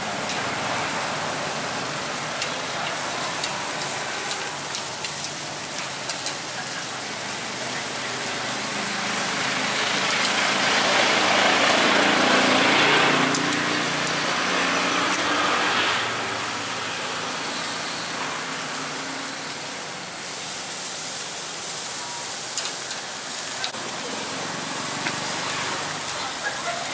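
Street background noise: a steady hiss, with a motor vehicle passing close and growing louder toward the middle before fading again.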